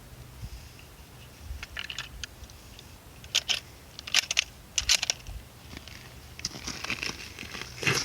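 Handling noise between shots: a string of short, sharp clicks and crinkles spaced about a second apart, then a denser crackling rustle building near the end.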